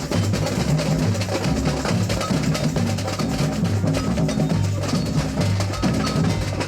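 Samba music with heavy percussion: deep drum beats repeating under a dense, fast rhythm of sharp wood-block-like and cowbell-like clicks and snare strokes.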